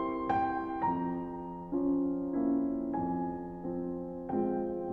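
Slow, gentle piano music: single notes struck about every half second to a second, each ringing and fading before the next.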